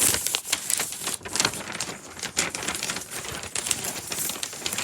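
A large sheet-paper airplane being handled and refolded, its paper rustling and crinkling in quick irregular crackles.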